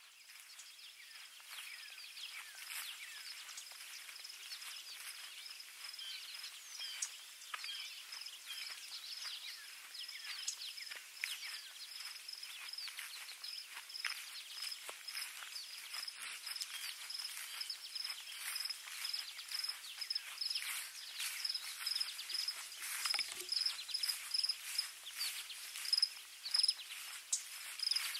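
Dawn chorus of many songbirds, a dense mix of chirps and short falling whistles, with a high note repeating evenly throughout. It fades in over the first couple of seconds.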